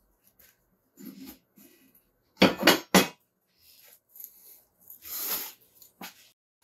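Hard objects clattering as they are handled: a few light knocks, then a loud cluster of sharp knocks near the middle, and a short scraping rustle near the end.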